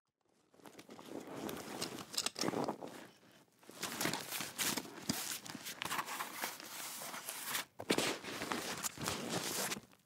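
Backpack being handled as foley: rustling with scattered knocks and clicks, in two stretches with a short break about three and a half seconds in.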